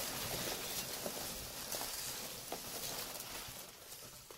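Foam packing peanuts rustling and rubbing against each other and the cardboard box as hands rummage through them, with small clicks, louder at first and dying down toward the end.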